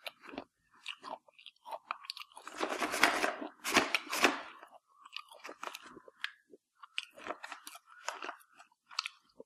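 A person chewing a mouthful of two crisp baked chocolate-flavoured banana chips at once, with irregular crunches that are loudest and densest between about two and four and a half seconds in.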